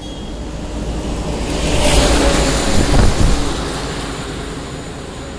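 Heavy trucks passing close by on the road: a rush of engine rumble and tyre noise that swells, peaks about two to three seconds in, and then fades away.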